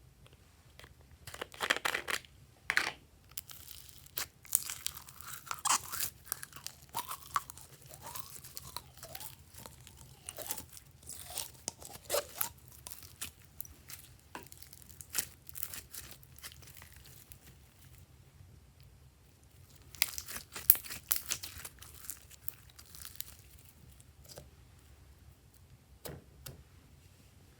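Glossy slime being worked by hand: sticky crackling, tearing and small squelching pops, coming in irregular bursts with a short pause about two-thirds of the way through.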